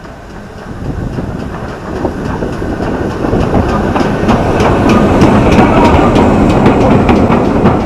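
A steam-hauled passenger train, pannier tank locomotive 1638 and its coaches, rolling slowly past close by, growing steadily louder. The wheels click rhythmically over the rail joints.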